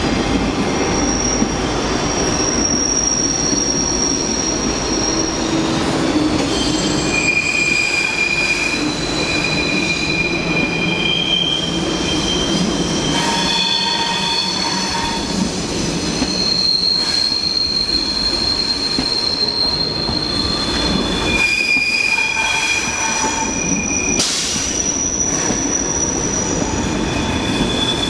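Thalys high-speed trainset moving slowly along a curved track, its wheels squealing in several high, shifting tones that come and go over the low rumble of the running gear.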